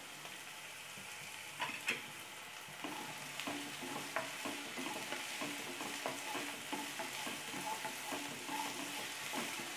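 Chopped capsicum and onions sizzling in oil in a nonstick pan, stirred with a wooden spatula. There are a couple of light knocks about two seconds in, then steady strokes of the spatula over the hiss of the frying.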